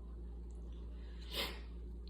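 A person with asthma taking one short, noisy breath about a second and a half in, over a low steady hum.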